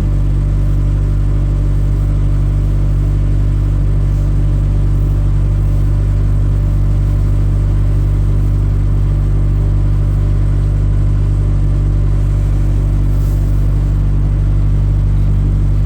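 A farm machine's engine running steadily: a low, even drone that holds the same speed throughout.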